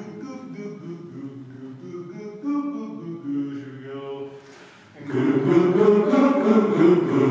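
Men's chorus singing a cappella vocal warm-up exercises, a series of held notes. Soft at first, then much louder from about five seconds in.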